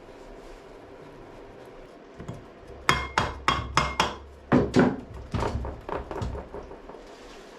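Hammer blows on metal engine parts: four sharp, ringing strikes in quick succession about three seconds in, then two heavier blows and a few lighter knocks.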